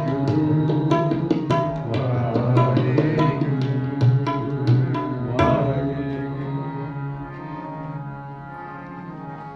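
Harmonium and tabla playing an instrumental kirtan passage. Regular tabla strokes run over the harmonium's held chords until about five and a half seconds in. Then the tabla drops out and the harmonium holds on, slowly getting quieter.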